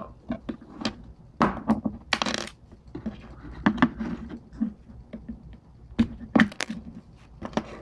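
Small metal clicks and short scraping rasps of a Glock 19 frame's pins being pushed out and handled during disassembly, irregular, with the loudest knocks about a second and a half in, near two seconds and around six seconds.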